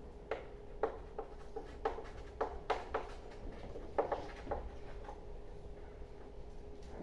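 Irregular light clicks and taps, about a dozen in the first five seconds, over a steady faint hum.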